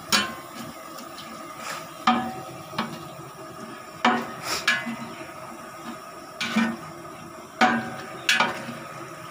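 A long-handled metal ladle stirring dried red chillies in hot oil in a large metal pot: about ten clinks and scrapes against the pot at irregular intervals, each ringing briefly, over a steady sizzle of frying.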